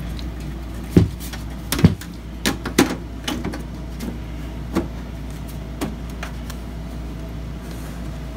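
Metal side panel of a Dell XPS desktop tower being fitted and latched onto the case: a series of knocks and clicks, the loudest about two seconds in, then a few lighter taps. A steady low hum runs underneath.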